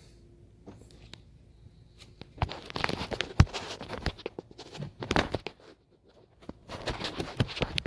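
Rustling, scraping and sharp clicks of small parts and tools being handled, in two bursts: one starting a couple of seconds in and a shorter one near the end.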